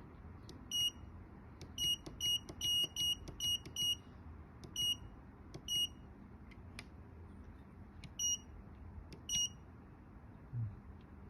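Short, identical high-pitched beeps from a vending machine control board's keypad buzzer, one per key press while paging through its menus: single beeps at irregular gaps, with a quick run of about seven in a row between two and four seconds in.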